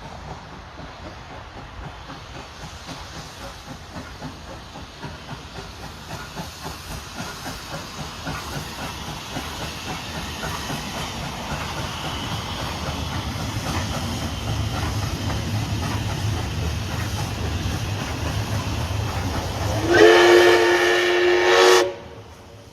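Steam locomotive 5917 approaching with hiss and a low rumble that grow steadily louder. Near the end it sounds one loud whistle blast of about two seconds, which cuts off suddenly.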